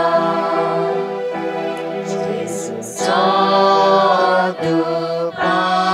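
A closing hymn sung in phrases by a wavering vocal melody over sustained, held accompaniment chords.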